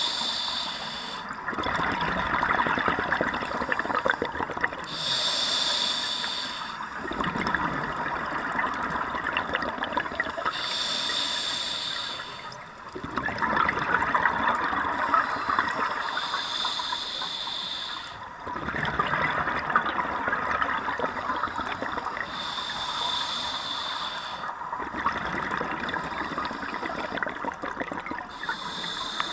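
Scuba diver breathing through a regulator underwater: a short hissing inhale about every five to six seconds, each followed by a longer rush of exhaled bubbles.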